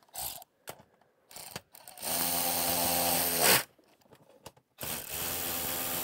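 DeWalt cordless electric ratchet running in two steady bursts of about a second and a half each, tightening the snow bar's brackets onto the metal roof; the second burst is still going at the end. A few small knocks come before the first.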